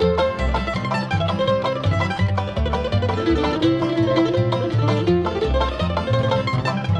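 Bluegrass band playing an instrumental at a brisk steady tempo: fast rolling banjo picking over guitar, mandolin and upright bass.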